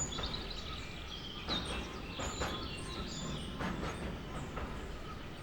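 Small birds chirping over a low, steady rumble, with a few short sharp clicks.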